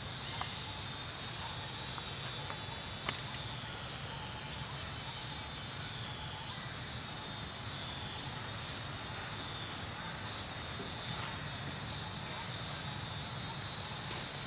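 Steady forest ambience dominated by a high, even insect drone, with a single faint click about three seconds in.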